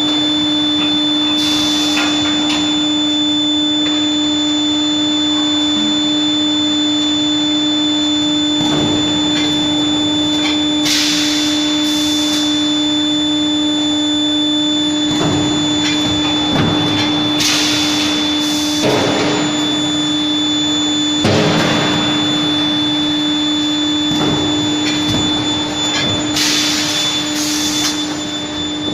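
Nut-forging machinery running with a steady hum, broken every few seconds by a short hiss, like an air blast, and by occasional single knocks.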